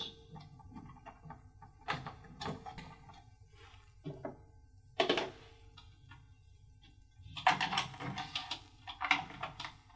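Scattered knocks, clicks and rustles of hands handling the plastic housing, rubber stopper and sensor cables of a weather station's solar transmitter, with a busier run of handling noise near the end.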